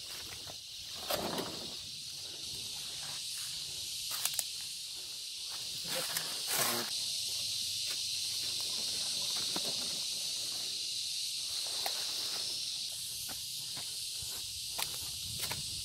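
Steady high-pitched drone of insects, with scattered sharp snaps and rustles as banana leaves are cut with a knife and handled.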